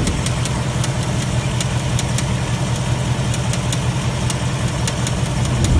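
2018 Ford Mustang GT's 5.0 Coyote V8 idling with a sharp, intermittent ticking, roughly two ticks a second, like a "ting ting" or "tap tap". It is the tick that 2018 owners link to pistons scoring the cylinder walls, said to lead to engine failure.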